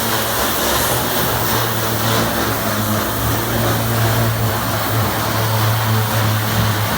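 Power grinder running steadily against metal, grinding rust off the steel body of a hand-pulled cart, with a constant low hum under a harsh hiss.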